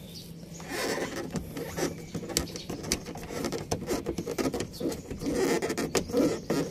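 Fingers working at the plastic underbody cover's fasteners to lower it, giving irregular small clicks, scrapes and rubbing of plastic.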